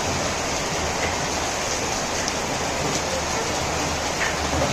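Heavy rain falling in a steady hiss, with runoff streaming off the edge of a corrugated metal roof.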